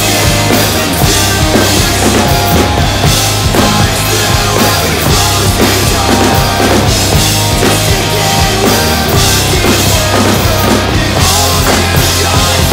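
Rock drum kit played loud and steady along to a full band recording of the song: kick and snare hits with crash-cymbal wash over a steady bass line.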